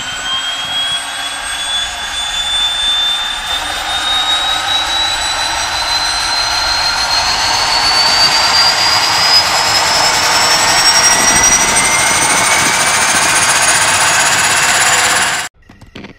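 Gas turbine engine spooling up: a high whine rising steadily in pitch over a rush of air, growing louder, then cutting off abruptly near the end.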